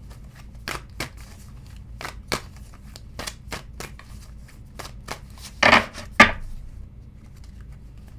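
A deck of astrology cards being shuffled by hand: irregular light slaps and clicks of the cards, with two louder ones about six seconds in.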